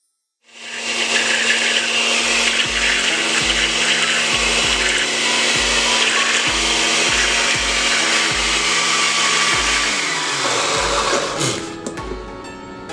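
Electric countertop blender starting up about half a second in and running steadily, puréeing a thick orange mix, then winding down with a falling pitch near the end. Background music plays underneath and is left alone once the motor stops.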